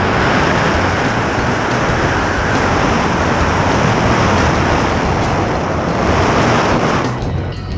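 Wind rushing over a wrist-mounted camera's microphone during tandem skydiving freefall: a loud, steady rush. It thins out about seven seconds in as the parachute deploys.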